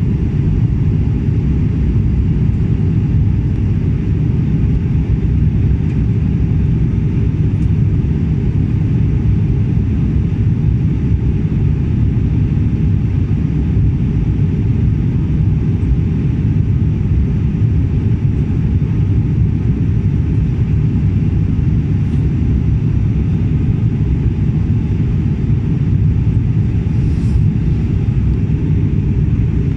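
Steady cabin drone of a turboprop airliner in flight: engine and airflow noise heard from a window seat, a loud, even low rumble.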